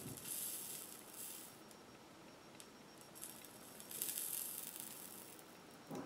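Flux sizzling and crackling under a soldering iron tip on a wire-to-connector solder joint, in two spells: at the start and again about four seconds in.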